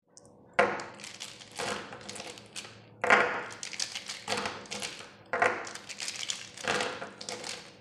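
A handful of plastic felt-tip markers clattering together against a tabletop, six times about a second apart. Each clatter starts sharply and ends in a brief rattle.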